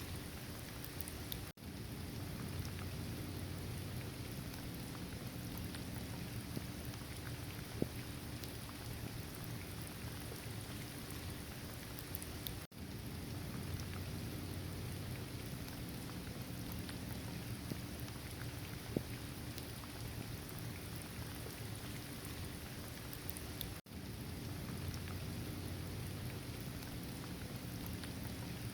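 Steady heavy rain with scattered pattering drops, over a constant low rumble. The sound cuts out for an instant three times, roughly every eleven seconds.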